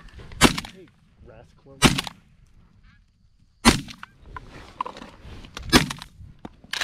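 Shotgun fired five times in quick succession, the shots spaced about one to two seconds apart, the last right at the end. Canada geese honk between the shots.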